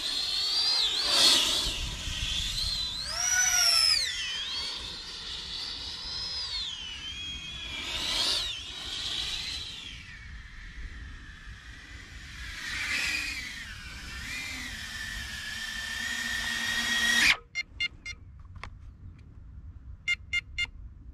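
SUB400 speed quadcopter's motors and eight-blade props whining at high speed, the pitch sweeping up and down sharply on each fast pass and throttle change. It settles into a steady high whine, cuts off abruptly about seventeen seconds in, and a few short high pips follow.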